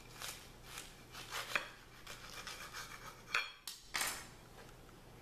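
Knife cutting across a chicken fried BLT on a bun, a run of short crunchy scraping strokes through the crispy batter-fried bacon. Two sharper knocks come about three and a half and four seconds in, then the cutting stops.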